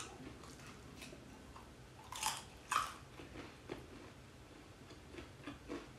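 A person chewing a bite of boneless fried chicken. There are two louder crunches a little after two seconds, then softer, irregular chewing.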